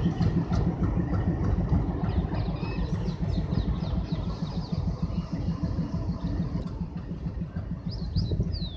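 Alco diesel locomotive's V16 engine running with a fast, low throb, slowly fading as it pulls away. A bird chirps a few times near the end.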